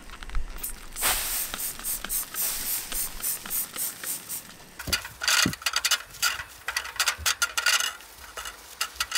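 Trigger spray bottle squirting cleaner onto a stainless steel shelf in a quick run of sprays, then a paper towel wiping the steel in short rubbing strokes.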